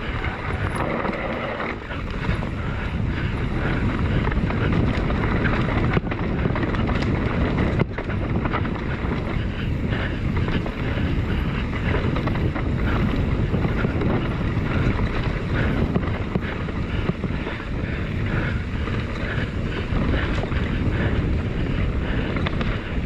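Wind buffeting an action camera's microphone over the rumble of a mountain bike's tyres on a dry dirt trail, a steady loud rush during a fast downhill run.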